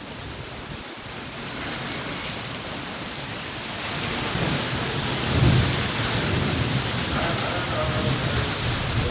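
Heavy rain pouring steadily during a thunderstorm, with a low roll of thunder swelling about halfway through.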